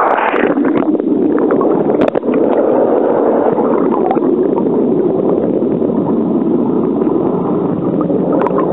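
Steady, loud rush of a waterfall's falling water heard right up close in the spray, a deep, dense noise with no let-up. One small click about two seconds in.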